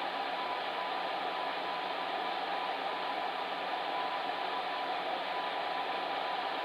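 Fan heater running steadily: an even whooshing blow of air with a faint steady hum from the motor.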